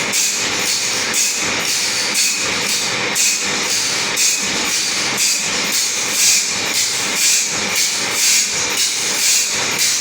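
Hand saw being sharpened with a metal file: rhythmic rasping strokes across the teeth, about one a second.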